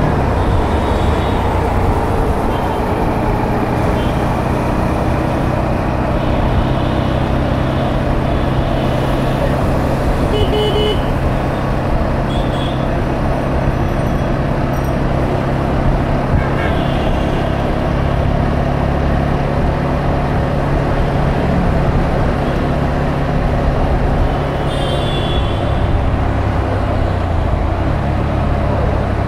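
Dense city road traffic heard from a moving motorbike: a steady engine hum underneath, with short vehicle-horn toots scattered throughout, the clearest near the middle and a few seconds before the end.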